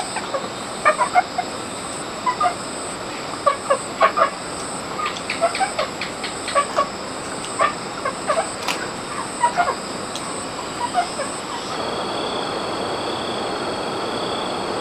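Chickens clucking: short, irregular calls, sometimes in quick clusters, over a steady high background hiss. The clucking stops near the end, leaving only the steady hiss.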